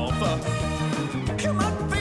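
Upbeat pop song: a band backing with a lead vocal singing the captioned lyrics.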